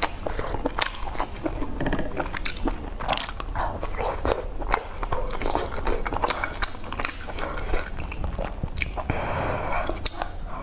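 A person chewing and biting food from a spicy hot pot, close-miked, with many irregular sharp mouth clicks.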